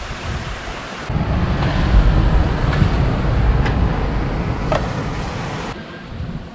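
Wind buffeting the microphone: a loud, even rushing noise, heaviest in the low end, that starts suddenly about a second in and stops suddenly shortly before the end.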